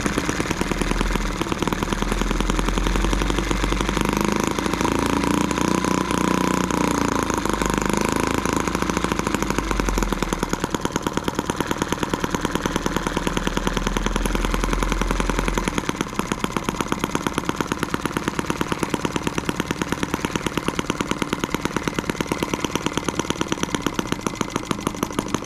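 M12B miniature single-cylinder four-stroke model engine running with a fast, even firing beat. The throttle is opened a little about a second in and the engine runs faster and louder, then near the middle it drops back to a slower, quieter beat.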